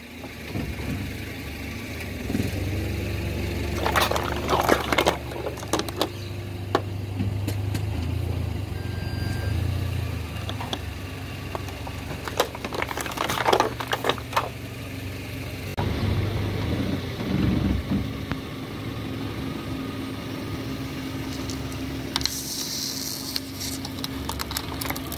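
A car's engine runs with a steady low hum while its tyre rolls slowly over plastic bottles. There are bursts of crackling and crunching as the bottles are crushed: around four seconds in, again around thirteen seconds, and around seventeen seconds. A short hiss comes near the end.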